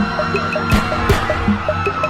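Instrumental hip-hop music with no vocals: a beat with sharp drum hits under a repeating pattern of short notes.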